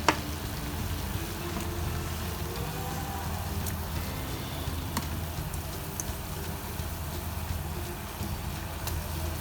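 Ginger and lemon simmering in a pot of water on the stove: a steady bubbling hiss over a low hum, with one sharp clink right at the start and a few faint ticks later.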